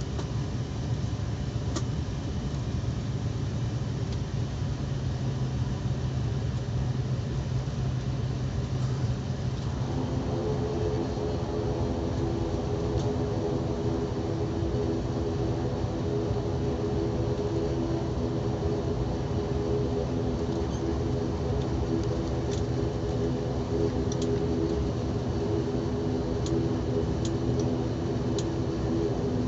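Cabin noise of a turboprop airliner taxiing after landing: a steady engine and propeller drone. About ten seconds in, a set of steady humming tones joins it as the engines change speed, and a few faint ticks come near the end.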